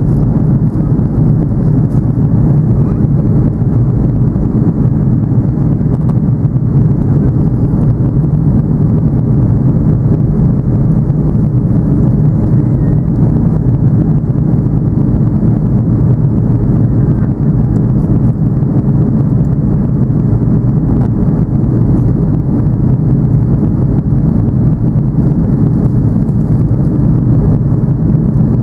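Steady low rumble of an Airbus A330-200's engines and rushing air, heard inside the passenger cabin in flight, unchanging throughout.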